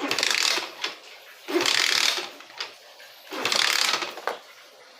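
A 50 cc scooter engine being kick-started three times: each kick cranks it over with a short mechanical, ratcheting clatter, and it does not catch and run between kicks.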